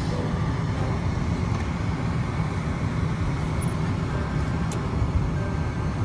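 Steady low rumble of a car's engine and tyres heard from inside the cabin as it idles or creeps along.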